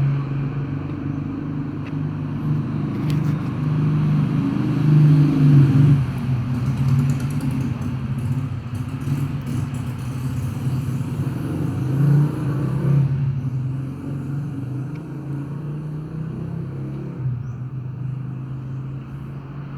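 A motor vehicle engine running steadily with a low hum, swelling slightly about five seconds in and again around twelve seconds.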